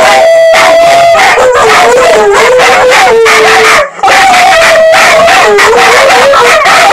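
Two dogs howling loudly together in long, wavering, overlapping howls, breaking off briefly about four seconds in. The howling is set off by a siren; one of the dogs is frightened of sirens and howls and shakes at them.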